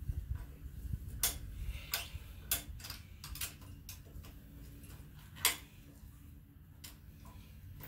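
Ratchet wrench clicking and metal tools clinking in short, irregular runs as bolts are worked on the top of an old AMC 4.2-litre engine, with one sharper click about five and a half seconds in.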